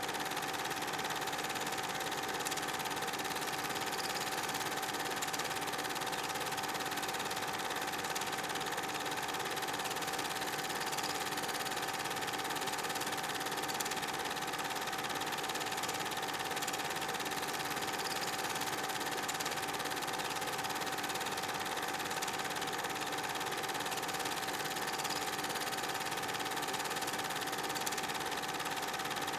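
Old film projector running with a steady mechanical whir and hum and a few faint ticks, the kind of sound laid under silent-movie footage.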